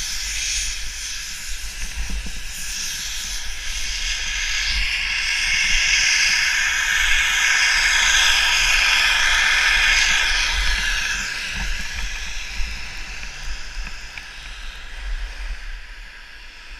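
Skis sliding fast over hard-packed snow, a steady scraping hiss with wind rumbling on the camera microphone. The hiss grows louder in the middle of the run and fades near the end.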